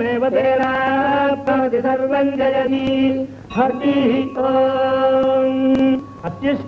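A man chanting Sanskrit mantras in long held notes, with a short break and a pitch glide about three and a half seconds in.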